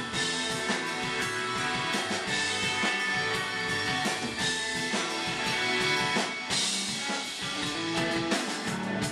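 Live rock band playing: electric guitars over a drum kit with cymbals.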